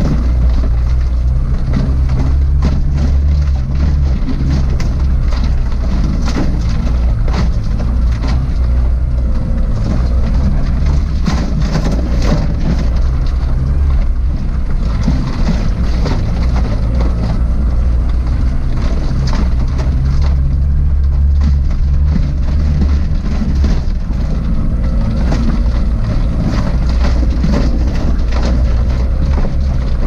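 Suzuki Jimny 4x4 driving on a rough track: a steady low engine drone with frequent knocks and rattles throughout.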